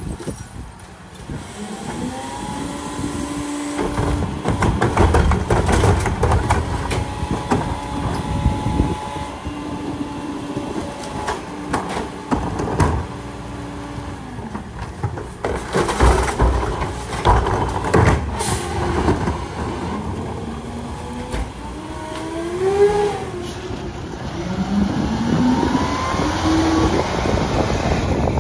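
Garbage truck at work: its engine and hydraulics run with a steady pitched whine that holds, drops out and comes back, broken by a few sharp knocks. Near the end the engine pitch rises in several sweeps as it revs.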